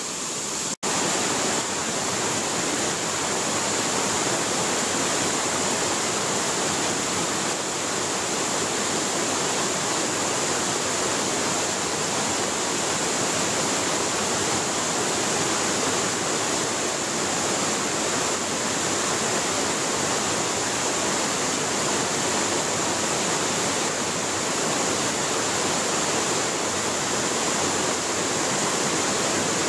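Forest waterfall and mountain stream rushing steadily over rocks, with a brief dropout about a second in.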